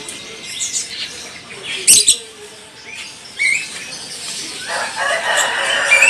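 Many small caged birds chirping and fluttering in wire cages, with a brief loud flutter about two seconds in and a denser mix of calls near the end.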